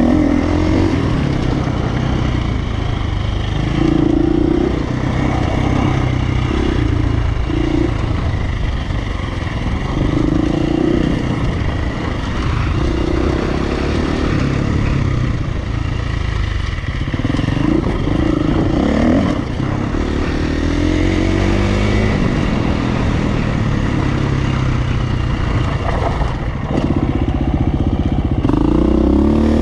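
Dirt bike engine running hard under the rider, its pitch repeatedly climbing and dropping as the throttle is opened and rolled off, with dips and pickups at about 4, 10, 17 to 19 and 27 seconds in. Chassis clatter from riding over rough ground runs underneath.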